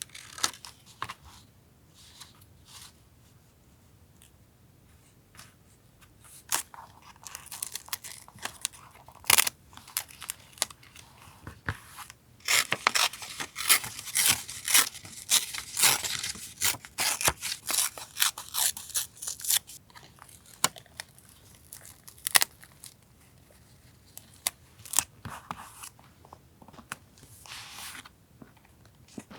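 Paper being handled for a journal collage: rustling, tearing and crinkling with sharp taps and clicks. It is busiest in a long dense stretch in the middle, with quieter pauses before and after.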